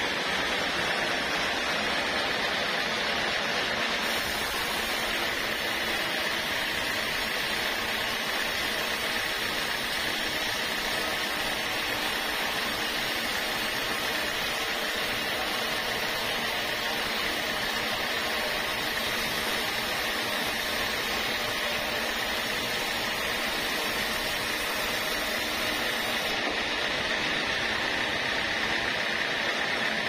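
Band sawmill running, its thin band blade ripping lengthwise through a squared teak beam: a steady, even sawing noise with a constant whine. A brighter hiss joins in about four seconds in and fades near the end.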